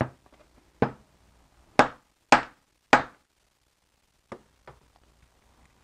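Sharp knocks as a BMW E46 manual gear shift lever with a freshly fitted bushing is rapped down against the workbench, checking whether the bushing pops out of its seat. There are five knocks in the first three seconds, then two fainter taps a little after four seconds.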